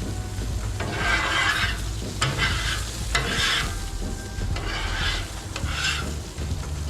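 Metal paint scraper pushed in repeated strokes across the hot, water-wetted steel top of a Blackstone griddle, scraping and sizzling as it lifts cooked-on food residue. The strokes come roughly once a second.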